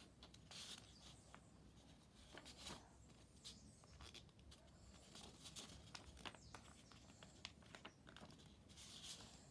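Faint rustling and creasing of a sheet of paper being folded by hand, with scattered soft clicks; otherwise near silence.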